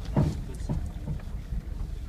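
Low rumble of an off-road vehicle driving over a rough rocky track, heard from inside, with wind noise on the microphone. A few knocks and rattles come as it jolts over bumps, the loudest about a quarter second in.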